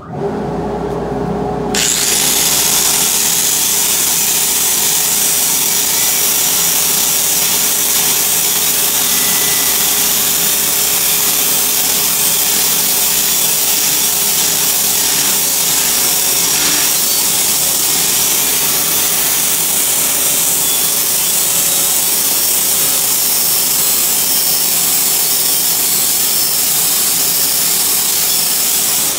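Corded angle grinder with a flap disc sanding a steel welding table top to grind off weld spatter. The motor spins up at the start, the disc bites the steel about two seconds in, and then a loud, even grinding hiss runs over the steady motor whine.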